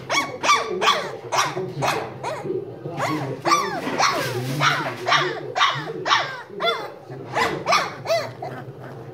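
Shar-pei puppies yapping over and over: short high-pitched yips, each dropping in pitch, about three a second, tailing off toward the end.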